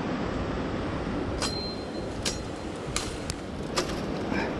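Machete chopping through thorny brush: about five sharp cuts, roughly half a second to a second apart, the first with a brief metallic ring.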